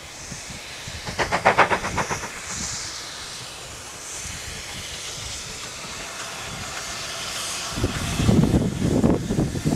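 GWR 2800 class 2-8-0 steam locomotive No. 2807 approaching under steam with a steady hiss of steam. There is a brief rapid clatter about a second in, and louder, pulsing chuffing and rumble near the end.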